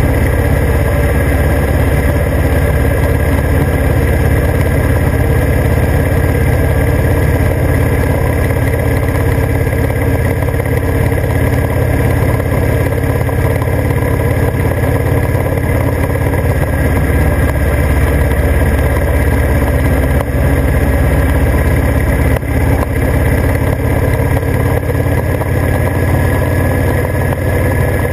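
Motorcycle engine running steadily at cruising speed on the open road.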